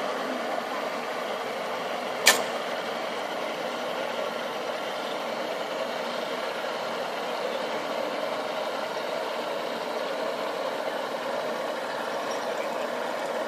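Outboard boat engine running steadily at low speed, a even mid-pitched hum, with one sharp click about two seconds in.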